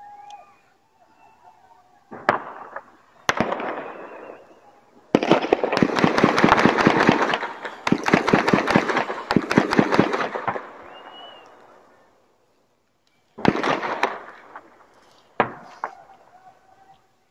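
Fireworks going off: two sharp bangs, then about five seconds of rapid crackling, then two more sharp bangs near the end.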